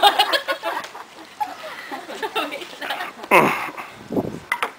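Table tennis play with voices: a loud falling cry about three seconds in, and sharp clicks of a ping pong ball against paddles and table near the end.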